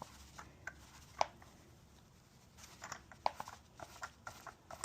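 Scattered faint clicks and light scraping from hand-tapping threads in a 3D-printed PETG block: a tap wrench being handled and the tap turning in the plastic.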